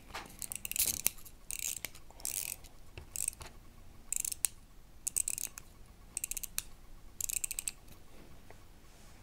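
Small clockwork spring motor of a toy fire engine being wound by hand: short runs of rapid ratcheting clicks, repeated about once a second and stopping near the end.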